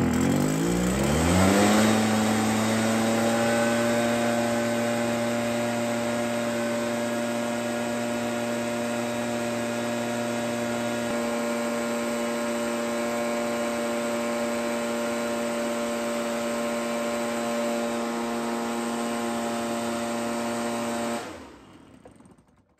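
Stihl backpack leaf blower's two-stroke engine revving up to full throttle, the pitch rising over the first couple of seconds, then held at a steady high speed with the throttle locked. It shuts off near the end and winds down.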